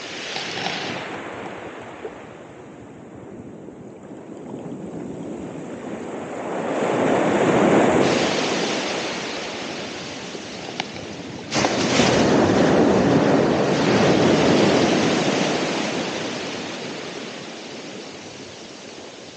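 Ocean waves breaking and washing on the shore. The surf swells about 7 seconds in, then a wave breaks suddenly about halfway through and slowly drains away.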